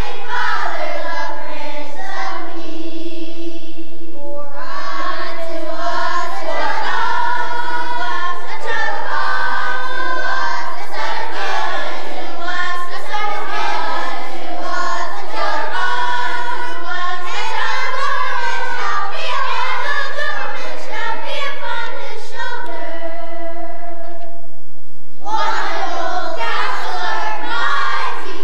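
A children's choir singing together, with short pauses about four seconds in and again near the end.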